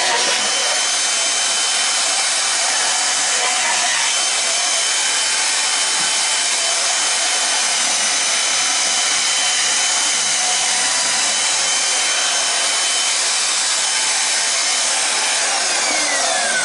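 Portable band saw mounted upright in a stand, running steadily with a high whine while cutting Kydex plastic sheet. Near the end it is switched off and its pitch falls as the motor winds down.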